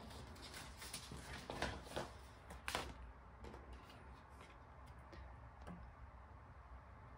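Paper being handled, with a few short crinkles and taps in the first three seconds, then only faint clicks over a low hum.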